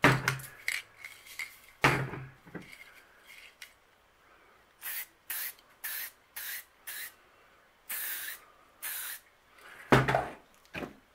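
Aerosol can of DuPont Teflon dry chain lubricant sprayed in about eight short hissing bursts onto an airgun magazine's pellet belt, coating it against jams. Sharp knocks and clacks of things being handled on a hard table come near the start and again near the end, and they are the loudest sounds.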